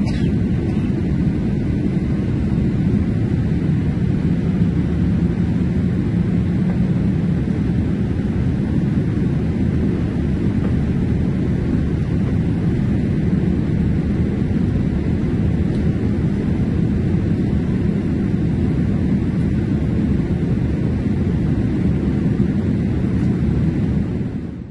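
Steady cabin noise of a Boeing 787 in flight, heard from a window seat beside the engine: a constant low rumble of engine and airflow with a fainter hiss above it, cutting out abruptly at the very end.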